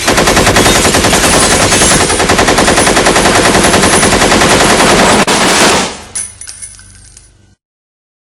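Movie machine gun sound effect: one long, steady burst of rapid automatic fire lasting about six seconds, then a ringing tail that fades out over about a second and a half.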